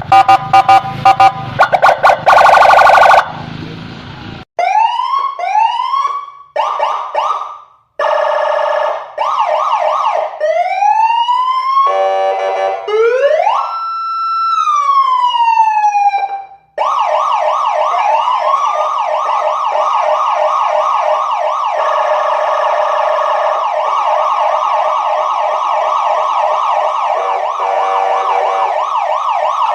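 Emergency-vehicle siren sounds. It opens with a few seconds of pulsing horn-like tones, then comes a string of single wailing sweeps, rising and falling, with short gaps between them. From a little past halfway, several fast yelping sirens overlap without a break.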